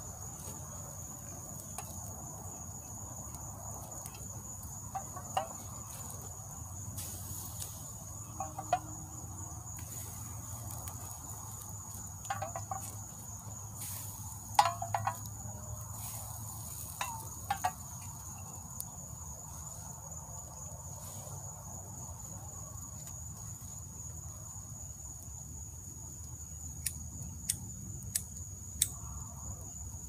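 A steady, high-pitched insect chorus shrilling without a break. A few short, sharp clicks and pops are scattered through it, bunched in the middle and near the end.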